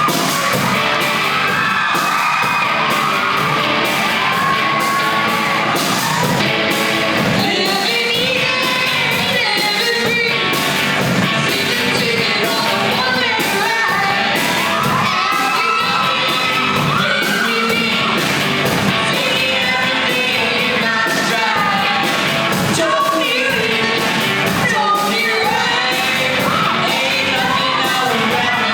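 Live band playing a song with a lead singer over drums, the audience yelling and whooping along.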